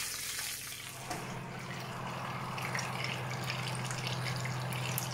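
Fan oven running with a steady low hum that comes in about a second in, over the fine crackle of fat sizzling in the pan around a roasting pheasant.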